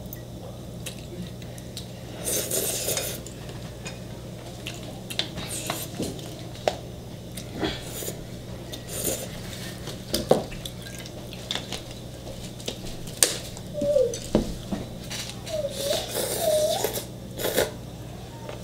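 Eating at the table: chopsticks and utensils clicking and clinking against dishes and an electric hotpot, with short bursts of noodle slurping, over a steady low hum.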